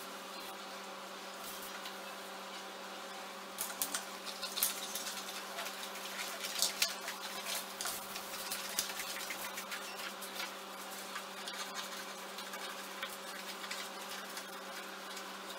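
Scissors snipping through orange card, with the card crackling as it is handled; the snips and crackles start a few seconds in and go on irregularly. A steady buzzing hum runs underneath.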